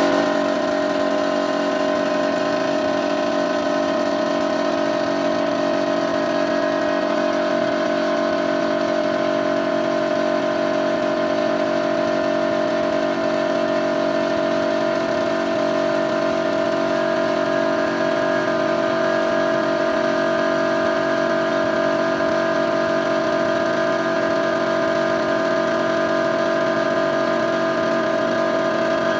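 Air compressor for a paint spray gun running steadily: a constant mechanical drone with a strong mid-pitched hum.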